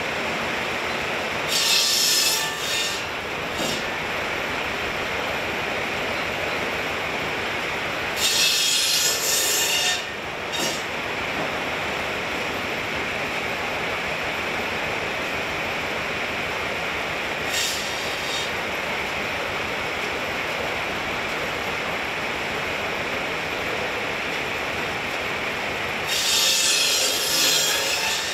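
Large circular sawmill blade running steadily, with a loud high rasp four times as it cuts through a log on the carriage: near the start, about eight seconds in, briefly around seventeen seconds, and near the end.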